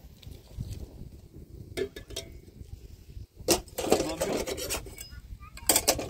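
A person speaking in short phrases, with a few sharp clicks between them.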